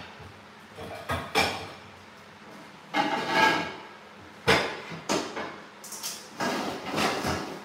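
Pots and lids clattering, with knocks of cupboard doors or drawers, as someone rummages through kitchenware for a pot lid: a string of separate clanks and bangs, some ringing briefly.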